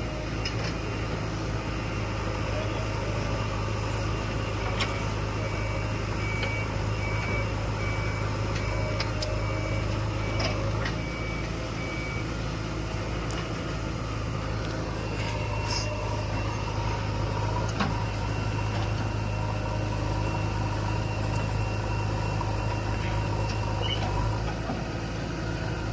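Heavy diesel truck engine running steadily. From about five seconds in to about twelve seconds in, a reversing alarm beeps at an even pace.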